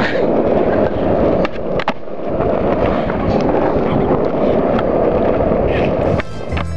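Skateboard wheels rolling on rough asphalt with a steady rumble, broken by a couple of sharp clacks of the board about one and a half and two seconds in and another near the end. Just before the end the sound cuts suddenly to music.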